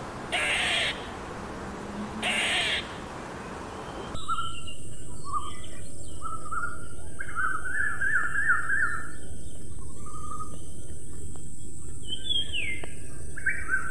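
Two short harsh calls in the first three seconds. About four seconds in, the sound changes to open-country ambience: a steady high hiss with several birds singing, including fast repeated trilled phrases and short whistled notes.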